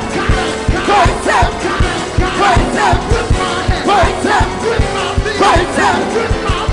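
Live gospel band playing a fast uptempo groove, with a drum beat about four times a second under quick repeated melodic runs, and voices shouting and singing along.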